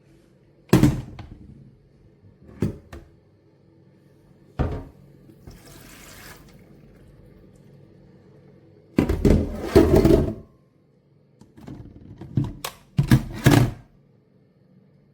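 Handling noise: a series of hard thunks and clicks, with a soft swish in between and a louder noisy burst about nine seconds in, over a low steady hum.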